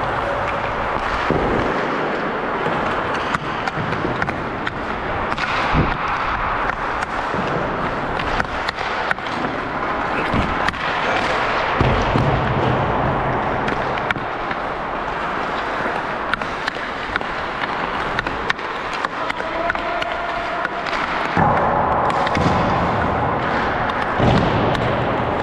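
Ice hockey warm-up sounds: skates scraping steadily on the ice, with frequent sharp clacks and thumps of pucks and sticks.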